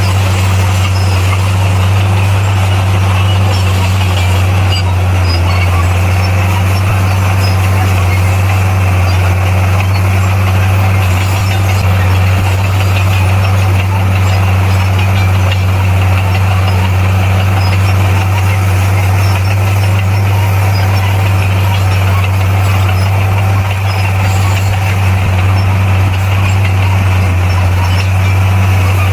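Heavy diesel engine of earthmoving equipment running at steady revs, with a loud, constant low hum.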